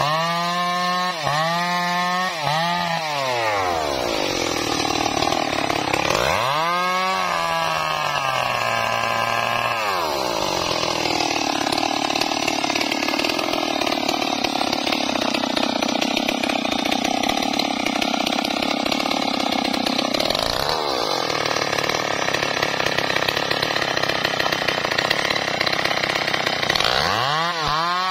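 Stihl MS 381 two-stroke chainsaw engine blipped several times at low revs, then run up to full throttle and held high for long stretches, dropping briefly twice, and falling back to blipping low revs near the end.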